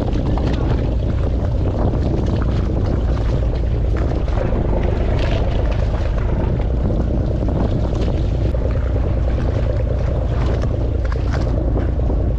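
Wind buffeting the microphone over the steady low rumble of a small fishing boat at sea, with faint scattered ticks and splashes.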